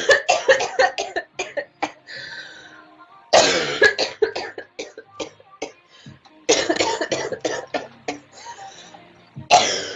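A girl coughing in fits, about every three seconds, each fit a quick run of several harsh coughs.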